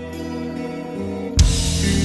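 Background music: a quiet sustained instrumental passage, then a louder, fuller section with guitar comes in suddenly about a second and a half in.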